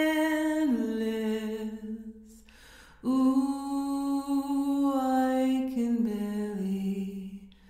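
A woman singing two long held notes, each stepping down in pitch partway through, with a breath in the short gap between them about two and a half seconds in.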